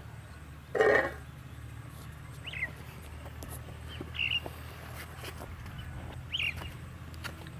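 A few short, high bird chirps, spaced a second or two apart, over a steady low hum. A louder brief call comes about a second in.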